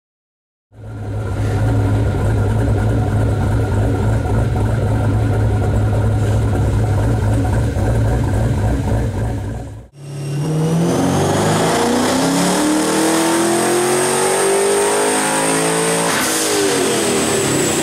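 Twin-turbocharged Chevrolet Camaro V8 with a custom cam idling steadily. After a cut, it runs a pull on a chassis dyno: the engine note climbs steadily for about six seconds with a high whine rising alongside, then comes a sharp crack near the top and the revs fall away.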